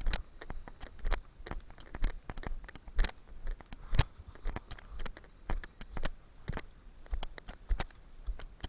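Footsteps crunching on rough ground at a walking pace of about two steps a second, each step with a low thump.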